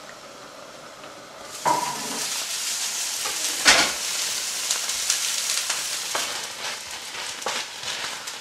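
Mixed vegetables frying in a non-stick pan, a steady sizzle starting suddenly about a second and a half in, with a wooden spatula stirring them and clicking against the pan, one knock louder than the rest.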